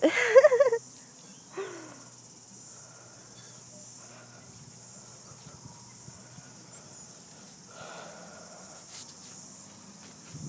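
Steady high-pitched insect chorus. In the first second, a loud wavering high-pitched voice, and a short falling call just after.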